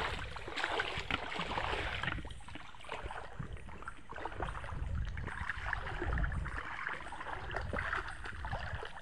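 Shallow river water sloshing and splashing around legs as people wade through it, in an irregular run of small splashes.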